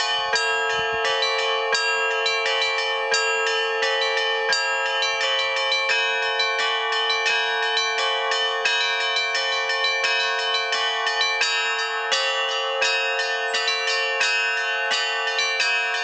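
Russian Orthodox church bells ringing a trezvon (full peal): several small bells struck in a fast, unbroken rhythm over the steady hum of a lower bell.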